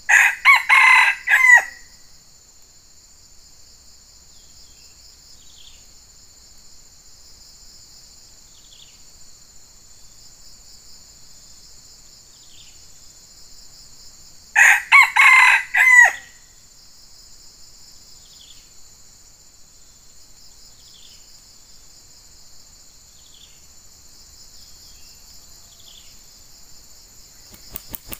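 Red junglefowl rooster crowing twice, about fifteen seconds apart, each crow short, over a steady high drone of insects. A brief flutter of wings near the end.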